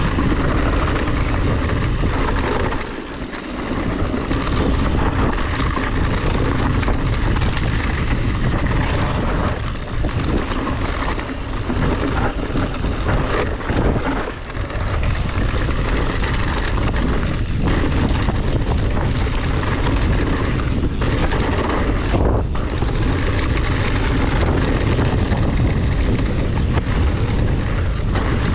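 Heavy wind buffeting on the microphone of a camera carried on a mountain bike descending a trail, with scattered knocks and rattles from the bike going over rough ground.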